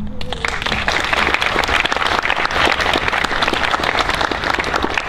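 Audience applauding: many people clapping at once, breaking out suddenly and holding steady.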